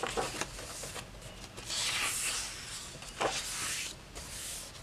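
Pages of a thick-papered hardback coloring book being turned by hand: paper rustling and sliding, with a longer swish about two seconds in and a shorter one a second later.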